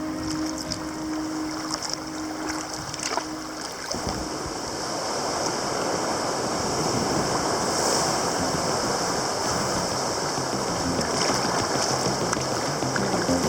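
Sea surf washing with a steady rushing noise that swells about four seconds in, after a held note of background music fades out.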